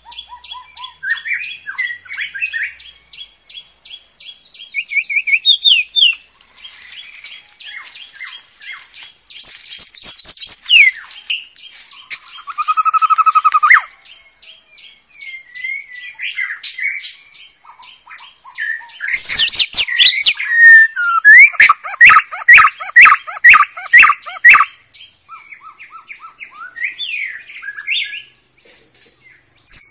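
White-rumped shama singing a long, varied song of whistles, trills and fast runs of repeated high notes. A loud, rapid run of sharp notes comes in the second half.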